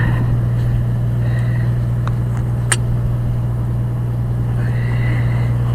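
Old Detroit Diesel engine running steadily at idle with a constant low drone, and a sharp metallic click a little under three seconds in.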